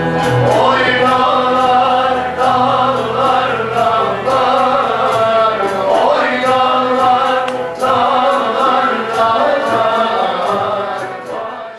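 Turkish folk ensemble performing: a mixed choir singing in unison over bağlamas and frame drums beating a steady rhythm. The music fades out near the end.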